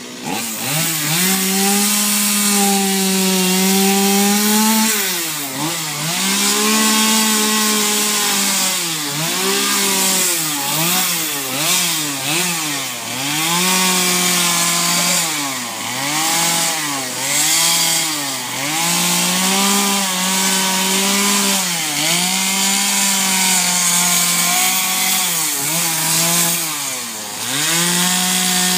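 Two-stroke carving chainsaw cutting into wood. The engine revs up hard and drops back again and again as the throttle is worked through short carving cuts, with the chain rasping through the wood.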